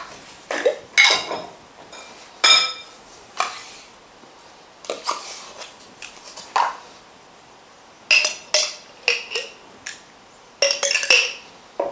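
Metal spoon clinking against a glass bowl as sour cream and mayonnaise are spooned onto a leek and apple salad: about a dozen sharp clinks with a short ring, irregularly spaced and coming quicker in the last few seconds.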